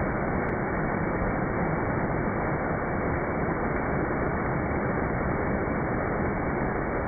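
Water rushing down a stepped cascade, slowed down with the slow-motion footage so that it plays as a steady low rush with no high end.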